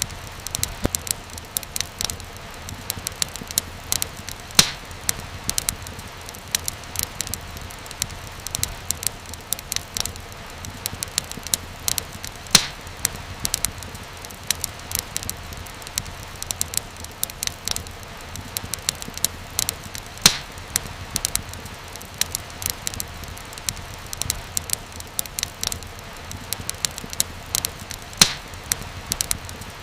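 Wood fire crackling: a constant stream of small snaps and pops over a low steady rumble, with a few louder pops standing out.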